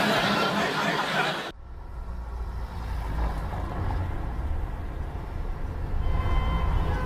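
Car sound effect for a taxi driving off: a loud rushing noise that cuts off suddenly about a second and a half in, then a steady low engine rumble.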